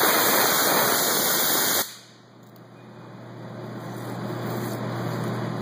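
Blow nozzle on a hose blasting through a crankshaft's oil passages, a loud spraying hiss that cuts off suddenly about two seconds in. A steady low hum runs underneath and slowly grows louder afterwards.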